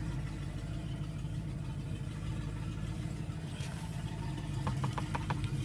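A motor running steadily with a low, even hum, with a short run of light clicks about five seconds in.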